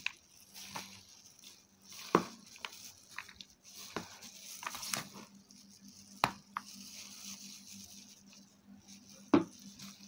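A metal spoon stirring chopped fruit and nuts in a plastic bowl: soft wet squishing, with a few sharp knocks of the spoon against the bowl, the loudest about two, six and nine seconds in.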